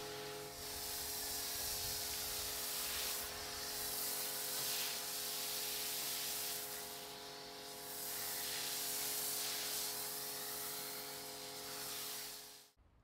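Pressure washer foam cannon spraying snow foam onto a car: a steady hiss of spray that swells and dips as the lance is swept, over a steady hum. The sound cuts off suddenly near the end.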